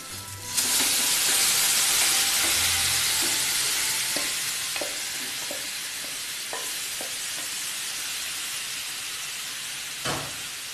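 Beef pieces tipped into a hot pan of butter, oil and ground spices, sizzling loudly at once and then settling to a steady sizzle. A wooden spoon gives a few light knocks as it is stirred.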